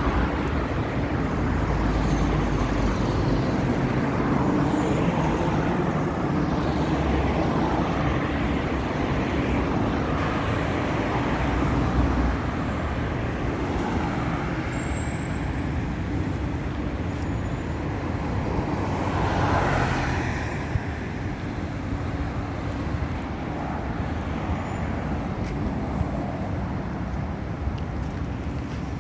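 Steady road traffic noise with cars going by, one vehicle passing close and louder about two-thirds of the way through.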